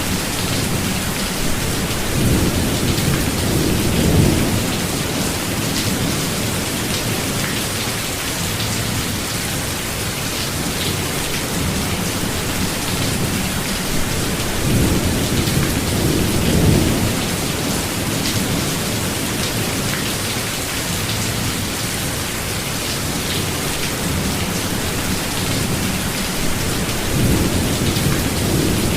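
Steady rain falling on a forest, a dense even hiss, with rolling thunder rumbling low three times: a few seconds in, about halfway, and near the end.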